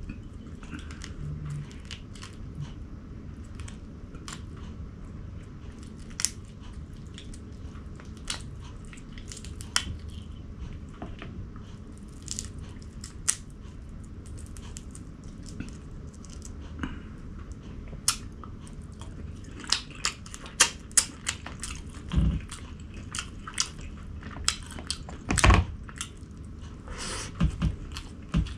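Close-miked eating: a person chewing and biting food, with many short sharp clicks and smacks that come more often in the last third, including two louder knocks. A steady low hum runs underneath.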